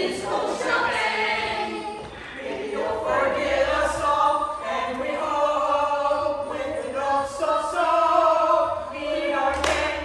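A group of voices singing a song together in rehearsal, in phrases of held notes.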